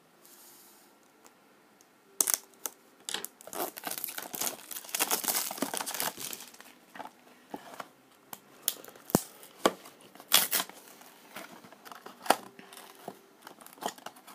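Toy blind-box packaging being opened by hand: cardboard and a crinkly wrapper rustling and tearing in irregular bursts, dense for several seconds after a quiet start, then sharper separate crackles and clicks.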